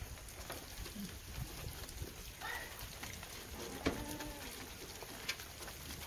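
Beetal goats feeding at a trough: scattered light clicks and rustles of their muzzles working in the feed. A couple of faint calls sound in the background, about two and a half and four seconds in.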